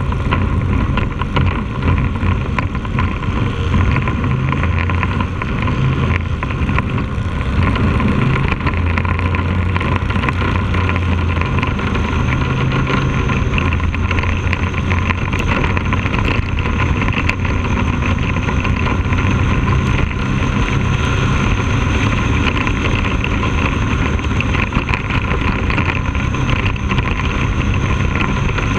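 Bandolero race car's engine running steadily at racing speed, heard from an onboard camera, its pitch easing and rising through the corners, with wind on the microphone. A thin high whine sets in about a third of the way through.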